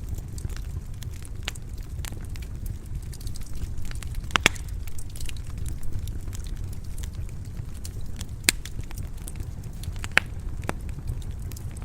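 Wood fire crackling in a stone fireplace: a steady low rumble of flames with scattered sharp pops, the loudest about four and a half, eight and a half and ten seconds in.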